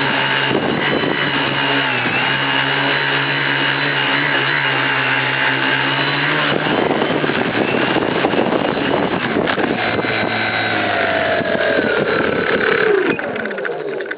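RC tricopter's three electric motors and propellers buzzing in flight, the pitch shifting as the throttle changes. Near the end the motors wind down with a falling pitch and stop.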